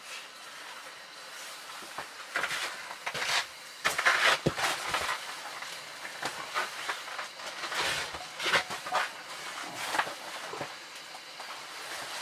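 Irregular rustling and scuffing of a person moving about and handling cloth, loudest around four seconds in with one sharp knock.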